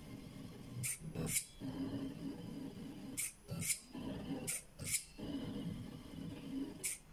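CNC 3018 pen plotter's stepper motors whirring steadily as they drive the pen across the paper, broken by about seven short sharp clicks, mostly in pairs, as the micro servo lifts and lowers the pen between strokes.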